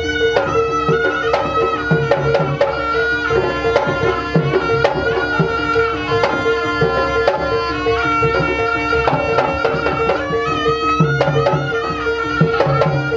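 Kuda kepang ensemble music played live: rapid hand-drum strokes under a wavering held melody line and a steady ringing tone from the gamelan percussion.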